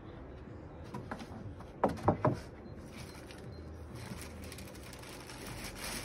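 Hands rummaging among packaged food in a wooden box, making low handling noise with a few light knocks, including three quick ones about two seconds in.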